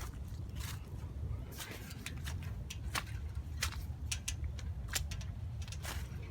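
Footsteps on wet ground, a dozen or so irregular crunching steps, over a steady low rumble.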